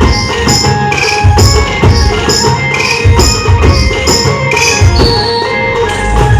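Adivasi band music: a melody over a steady drum beat, with bright jingling hits about three times a second.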